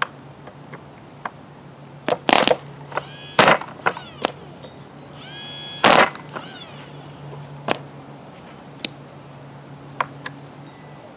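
Handheld electric starter spinning a 1973 Fox 29 two-stroke glow engine in short bursts, with sharp clacks, the engine not catching because it is flooded, too wet. A steady low hum runs underneath.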